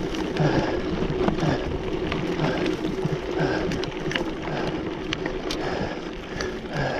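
Mountain bike rolling down a dry dirt singletrack: a steady rush of wind and tyre noise, with the bike rattling in scattered sharp clicks over the bumps.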